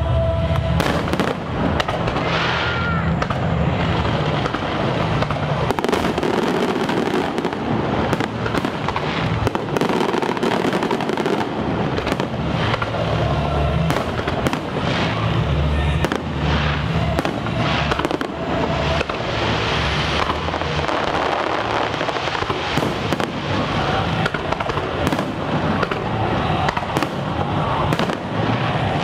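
Aerial fireworks display: a continuous, irregular run of shell bursts and crackle, many reports close together.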